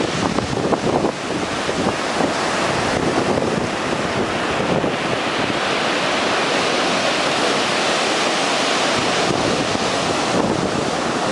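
Ocean surf washing onto the shore in a continuous rush, with wind blowing on the microphone.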